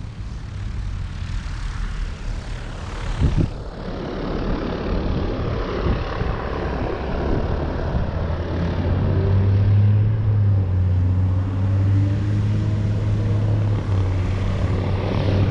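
Piston engine of a Piper light training aircraft taxiing closer, a steady propeller drone that grows louder about two-thirds of the way through, over a wider rushing noise that is stronger in the first half.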